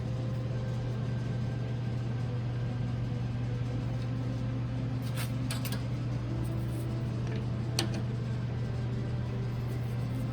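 Wood lathe motor running with a steady hum. A few sharp clicks sound around the middle, the loudest a little after the two-thirds mark.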